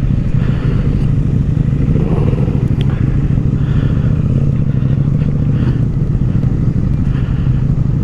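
Motorcycle engine running steadily while being ridden, its even hum holding the same pitch throughout.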